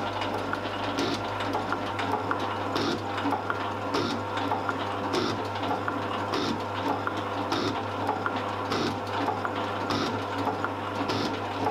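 Metal shaper running, its ram cycling at about one stroke every 1.2 seconds, with a brief scraping cut of the tool through cast iron on each stroke over a steady motor hum.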